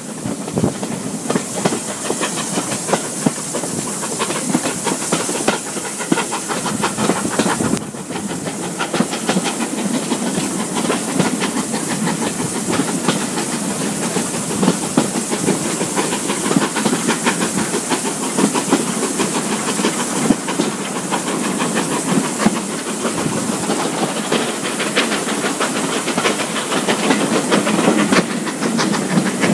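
Steam-hauled passenger train running, heard from an open carriage window: a steady rush of air and steam hiss with the fast clatter of the coach wheels over the rails.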